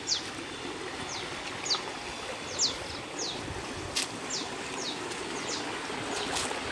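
A small bird calling repeatedly with short, high, quickly falling chirps at irregular intervals, over a steady rushing background noise. There are a couple of sharp clicks near the middle and near the end.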